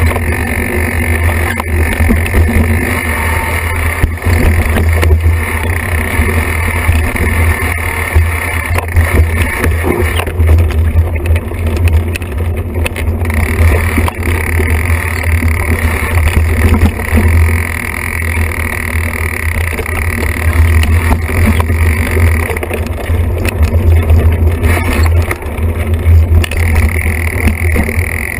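Wind rushing over a bike-mounted action camera's microphone on a mountain bike descent, a loud steady low rumble, with frequent rattles and knocks from the bike bouncing over rough singletrack.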